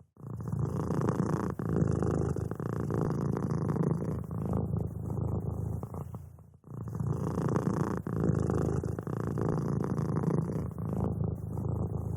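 Domestic cat purring, a close, steady low rumble that pauses briefly at the start and again about six and a half seconds in.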